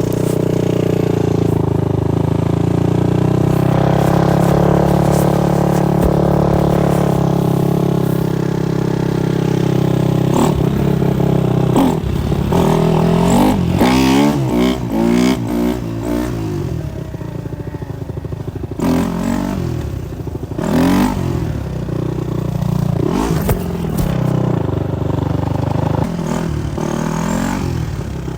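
Supermoto motorcycle engine running under way: a steady pitch for the first several seconds, then rapid rises and falls of revs through the middle, with scattered sharp knocks and clatter.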